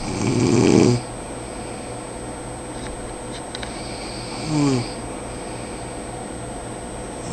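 A man snoring in his sleep: a loud snore lasting about a second, a short falling sound about halfway through, and the next snore starting near the end.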